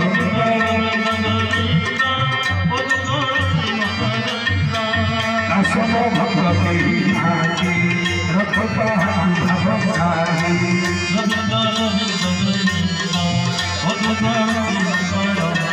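Music with hand-drum rhythm and held melodic tones, steady and without a break.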